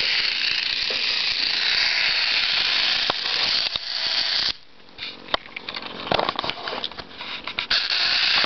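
A steady hiss that cuts out suddenly about four and a half seconds in, followed by a run of small clicks and rattles from hands handling the robot and its switch; the hiss returns near the end.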